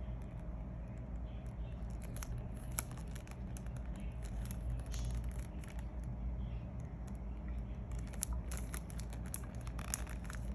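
Light rustling and small clicks of hands handling perfume packaging, in clusters about two seconds in and again from about eight seconds, over a steady low hum.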